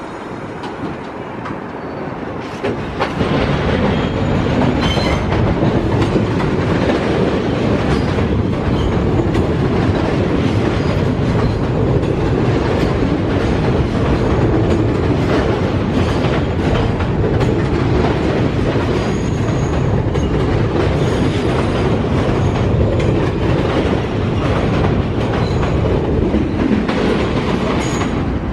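New York City subway train pulling out of an elevated station. Its running noise rises sharply about three seconds in, then stays loud and steady, with wheels clacking over the rail joints and a faint high wheel squeal in the second half.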